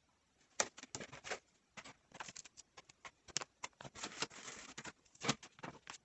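Retail packaging being handled by hand: plastic and cardboard giving scattered light clicks, taps and rustles at irregular times, with a short stretch of rustling about four seconds in.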